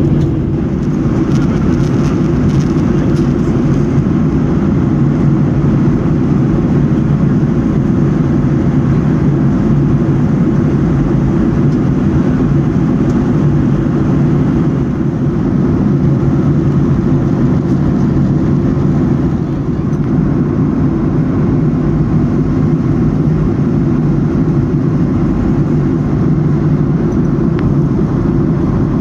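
Steady drone of an airliner's engines and rushing air, heard from inside the passenger cabin.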